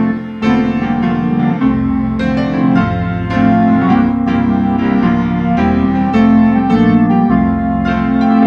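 Organ and piano playing a Christmas piece together: held organ chords under a run of struck piano notes.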